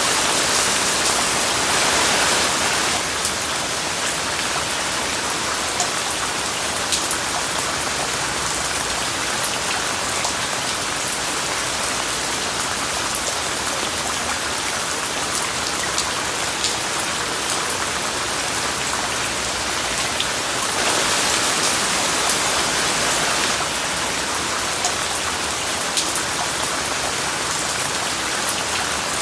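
Steady rain mixed with white noise, with single drops ticking now and then. The rain grows louder for a few seconds at the start and again about 21 seconds in.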